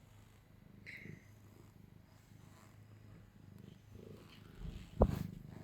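Domestic cat purring faintly and steadily, with a sharp thump about five seconds in.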